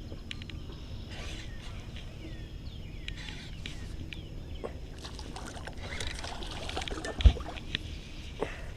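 Open-air ambience aboard a fishing boat: a low steady rumble with faint bird chirps and scattered light clicks, and one heavy thump against the boat about seven seconds in.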